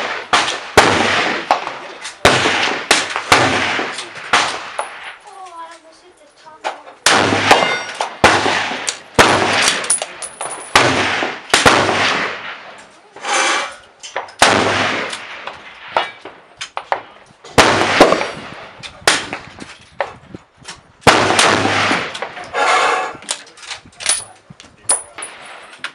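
Rifle shots at a shooting range, with a dozen or more loud reports from several guns coming at irregular intervals. Some come in quick runs, and each has an echoing, ringing tail.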